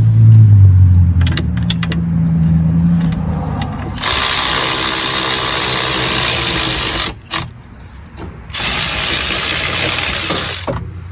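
Power tool spinning out a brake caliper bracket bolt, running in two bursts of about three seconds each with a short pause between. A low hum fades out in the first seconds before it starts.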